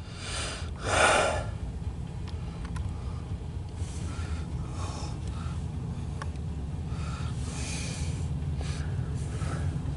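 A MARC commuter train's diesel locomotive running with a low, steady rumble as the train rolls slowly past. Two short hissing bursts come in the first second and a half, the second louder.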